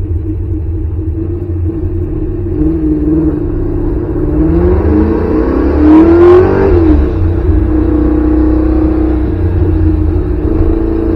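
C4 Corvette's small-block Chevy V8, heard from inside the cabin, running under way. About four seconds in it accelerates hard, its pitch rising to the loudest point around six seconds. The pitch then falls back sharply and settles into a steady drone.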